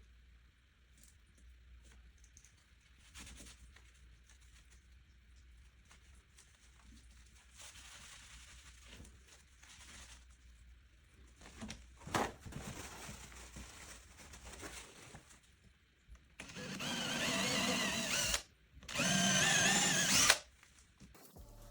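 Electric drill running in two bursts near the end, about two seconds and then a second and a half, its whine wavering in pitch: drilling a hole in the parquet floor so that repair adhesive can be injected to stop the squeak. Before that, only faint handling sounds and one sharp click.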